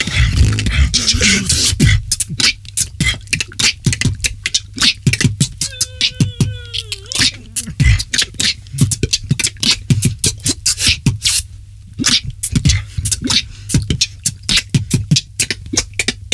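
Beatboxing: mouth-made kick, snare and hi-hat sounds in a fast, even rhythm over a steady low bass. The first two seconds are dense and bass-heavy. About six seconds in, a sung tone slides downward for about a second.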